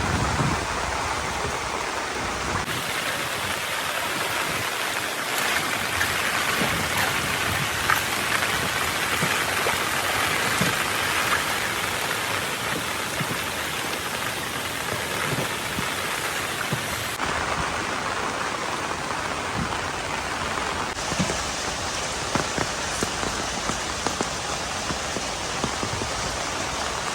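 Steady rain falling, a continuous hiss of drops.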